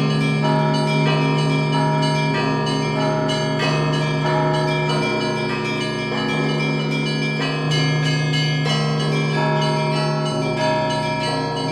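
Russian Orthodox church bells rung by hand, several at once: small bells struck in quick, dense patterns over heavier bells. The lowest tones alternate in a slow, steady rhythm, changing about every second and a half.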